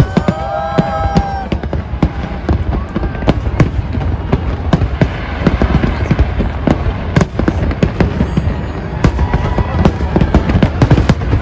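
Macy's Fourth of July fireworks going off in quick succession: a dense run of sharp bangs and crackles over a continuous deep rumble of booms.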